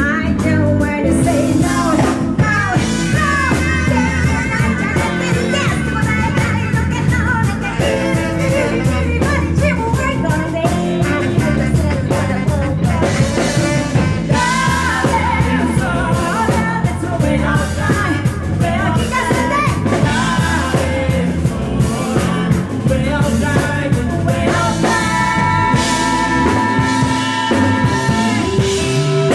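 Loud rock-style music with singing and a steady band accompaniment.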